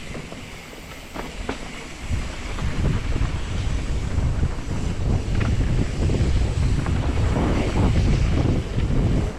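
Wind buffeting the microphone of a camera riding down a mountain-bike trail, growing louder about two seconds in, with a few scattered clicks and rattles.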